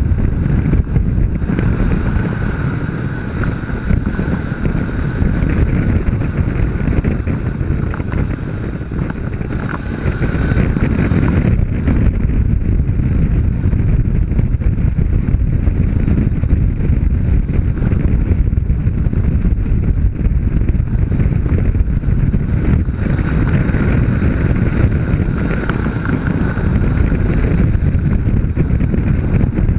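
Honda CB500 parallel-twin engine running at speed on track, heard under heavy wind rushing over the onboard camera's microphone. The noise eases a little around eight seconds in and picks up again about ten seconds in.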